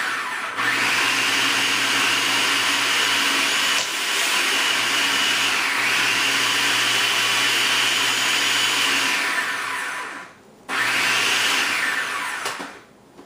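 Electric mixer running, creaming buttercream frosting: a steady motor whine that drops in pitch for a moment around the middle. It cuts out at about ten seconds, starts again, and winds down near the end.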